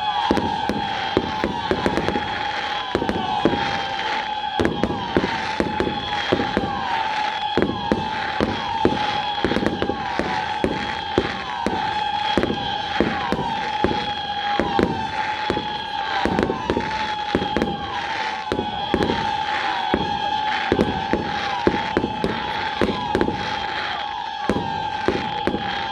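Fireworks display going off in a dense, continuous barrage of bangs, several a second. A steady high tone runs beneath the bangs.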